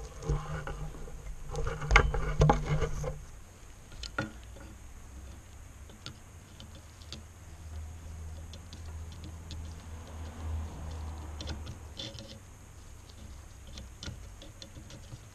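Steel circlip pliers clicking and scraping against a cast brake caliper while they are worked down a narrow gap toward an internal circlip. There are louder knocks and handling noise in the first few seconds, then scattered light metal ticks.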